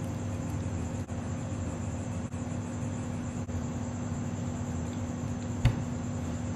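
Steady low hum and hiss of room noise, with one sharp knock about five and a half seconds in as a plastic soda bottle is set down on the table.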